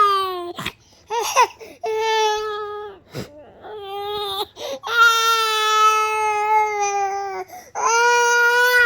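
A young child crying hard: a run of long, high wails with short catches of breath between them, the longest held for about two and a half seconds midway.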